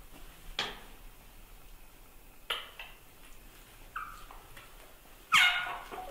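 Short high squeaks and cries from a baby monkey and a dog wrestling in play, four in all, the loudest and longest a cry about five seconds in.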